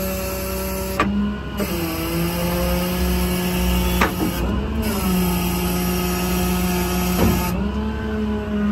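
Service truck's 6.7 Cummins diesel and its hydraulic system running with a steady hum. The pitch drops and rises again several times, and there are a few sharp clicks.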